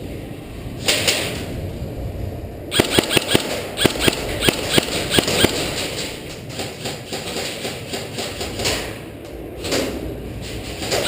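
Indoor airsoft gunfire: a short burst about a second in, then from about three seconds on a run of sharp, irregular snaps and clicks of shots and BBs striking walls and cover, several a second.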